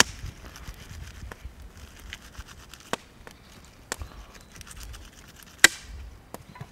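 Bark being stripped from a green willow stick by hand: scattered sharp cracks and snaps, the loudest a little over two thirds of the way through, with a faint low rumble underneath.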